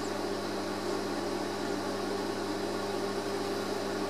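Steady hum and hiss of running equipment: a few low tones held unchanged under an even rushing noise.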